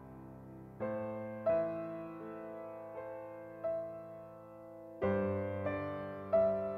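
Soft background piano music: slow chords struck every second or two and left to ring and fade.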